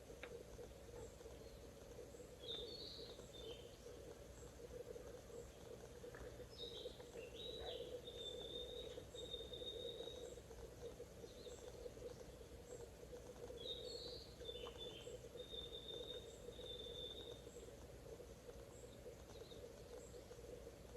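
A bird singing three song phrases in forest, each with a few quick notes and a long even whistle, faint over a steady low hum. Soft high ticks repeat about once a second.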